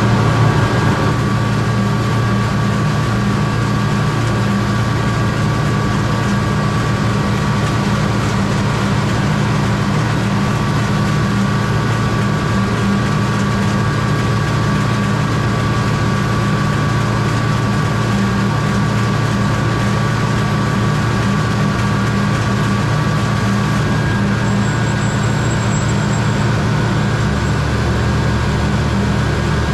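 Heavy diesel harvest machinery running steadily under load: a constant low engine drone with a steady high whine above it. One strand of the whine drops out about 24 seconds in, and a deeper hum joins near the end.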